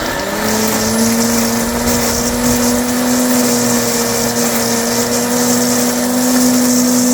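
Sun Joe electric leaf mulcher switching on, its motor whine rising in pitch as it spins up and then holding a steady, loud hum as it runs.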